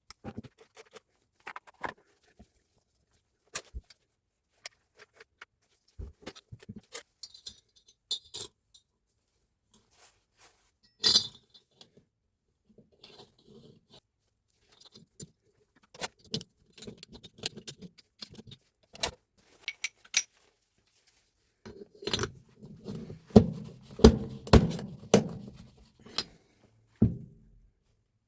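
Intermittent clinks, clicks and scrapes of small metal parts and tools being handled during a Hilti TE 905 breaker repair, with a louder run of knocks and rattles near the end.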